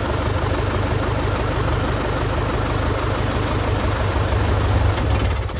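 CubCrafters Carbon Cub EX's propeller engine idling on the ground, a steady low drone that swells slightly near the end and then starts to die away as the engine is shut down.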